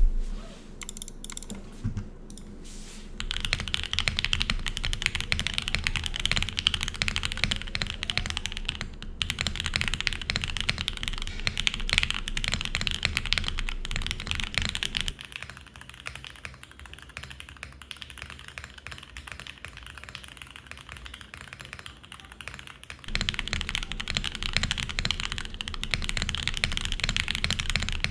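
Typing on a Mode Envoy mechanical keyboard with lubed Gateron Oil King linear switches, FR4 plate, foam and PBT keycaps: a few separate keystrokes, then steady fast typing from about three seconds in. From about halfway through to about three-quarters through it is picked up by a camera microphone and sounds quieter and thinner, before returning to a fuller condenser-microphone sound.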